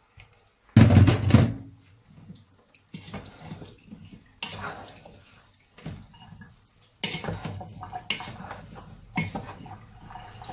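A wooden spoon stirring diced eggplant cubes in a pot, with several clattering knocks and scrapes against the pot; a louder clatter about a second in.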